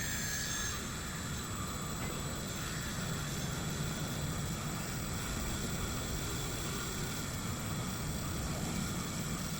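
Small rotary polishing tool running steadily, buffing a copper-plated pendant, with an even whirring hum and a faint high whine.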